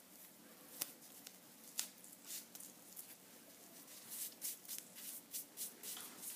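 Quiet handling noise: a string of short rustles and clicks, a few spaced out at first, then coming several a second in the second half.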